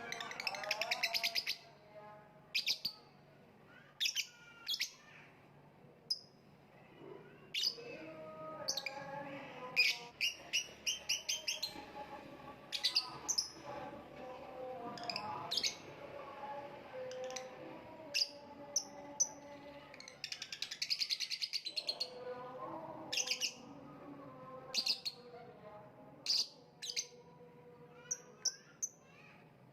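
Lovebird chirping: sharp, high chirps, some single and some in quick rattling runs, with quieter, lower warbling in between.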